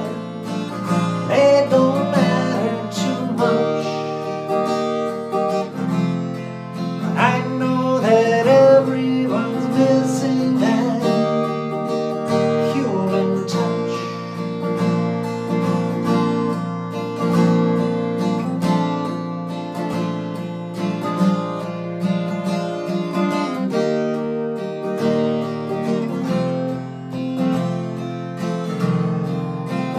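Acoustic guitar strummed in a slow instrumental passage between sung verses.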